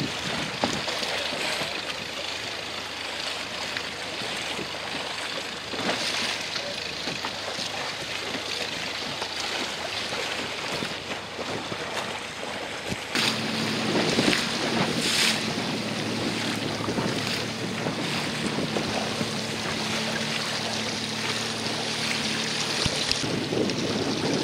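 Wind on the microphone and choppy sea, with a boat engine's steady low hum coming in about halfway through.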